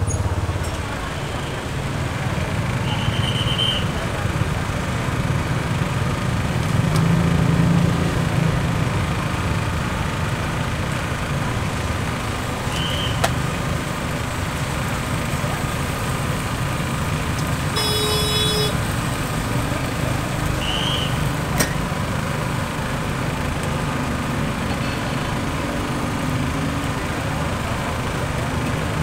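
Steady roadside street ambience: a low rumble of passing traffic and engines, broken by a few brief high chirps and one short pitched squeak or toot about two-thirds of the way through.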